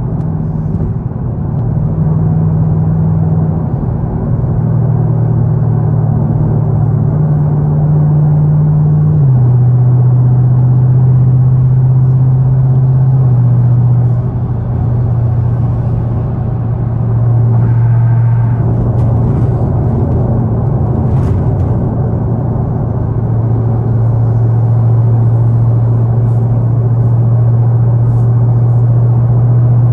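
Car engine and road noise droning inside the cabin while driving at speed; the engine's low note steps down in pitch about nine seconds in and again a few seconds later, with a brief dip in level around eighteen seconds.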